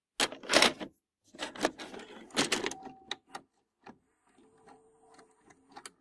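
A VHS cassette pushed into a video cassette recorder: loud plastic clacks and rattles as it goes through the slot, then the loading mechanism runs with a faint motor whir and a string of small clicks.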